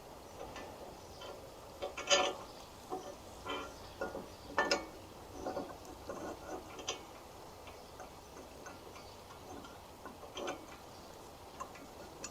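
Irregular light clicks and knocks of bike-carrier parts being handled and fitted into place by hand, the loudest about two seconds in and again a little before the five-second mark.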